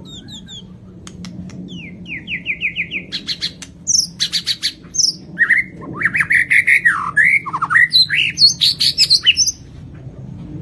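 White-rumped shama (murai batu) singing a varied song: clear whistles, a quick series of about six down-slurred notes, sharp clicks and scratchy phrases, the singing stopping about a second before the end.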